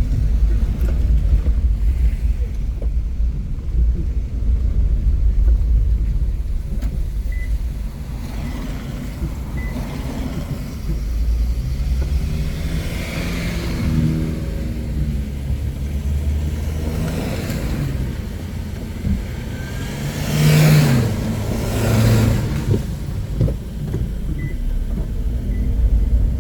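Car on the road: a steady low rumble of engine and tyres, swelling louder twice as traffic goes by, about halfway through and again about three quarters through.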